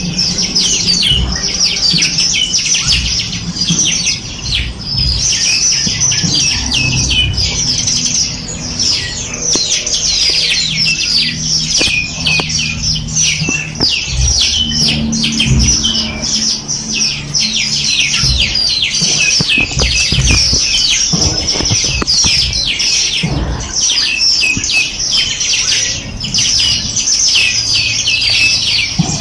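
A dense chorus of small songbirds, many birds chirping and trilling rapidly and overlapping without a pause, with a low, uneven rumble underneath.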